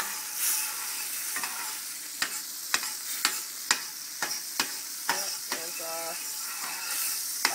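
Olive oil and butter sizzling in a hot frying pan: a steady hiss with sharp crackles and spits a couple of times a second, the fat heating before the chicken goes in.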